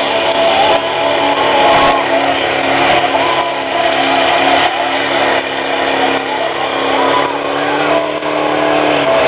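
Pickup truck engine running hard at steady high revs under load as it pulls a weight sled down the track.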